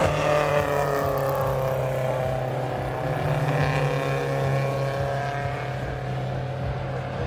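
Racing car engines passing by. The engine note falls as a car goes past, rises again, then falls, over a steady low drone.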